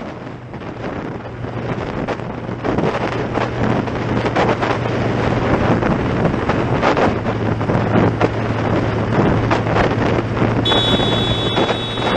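Motorcycle at motorway speed heard from the rider's helmet camera: heavy wind buffeting on the microphone over a steady engine hum. Near the end a high steady tone joins in.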